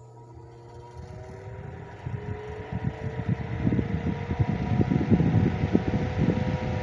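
Vintage 8-inch Super Electric desk fan switched on and spinning up: the motor's hum rises in pitch and grows steadily louder as the blades come up to speed. Gusty air from the blades buffets the microphone.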